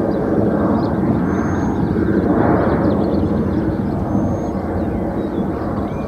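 Airplane taking off from a nearby airport: a steady broad rushing rumble that eases off slightly near the end.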